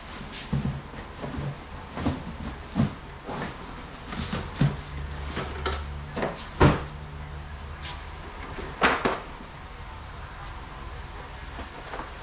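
Cardboard boxes being handled: picked up, carried, set down with knocks and thuds, and a flap pulled open with rustling. The loudest knocks come about six and a half and nine seconds in.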